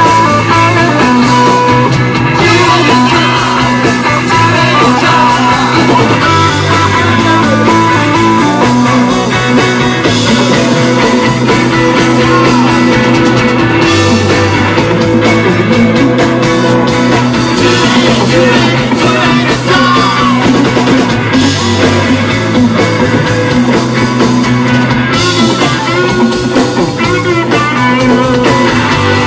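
Live rock band playing loud: distorted electric guitars over electric bass and drums, one continuous stretch of the song.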